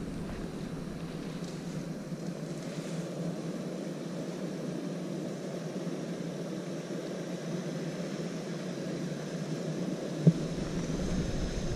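Engine of an off-road SUV as it drives slowly up a forest track toward the listener, a steady drone that grows louder near the end. One sharp knock about ten seconds in.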